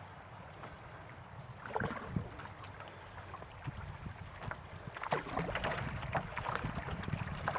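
Canoe paddle strokes dipping and splashing in a fast-running river, over a low rush of water and wind on the microphone. A splash comes about two seconds in, then a busier run of strokes in the second half.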